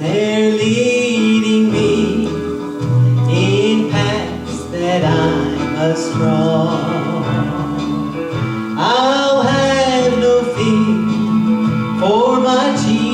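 A male voice sings a slow country gospel song over an instrumental accompaniment, with long held notes that waver in vibrato.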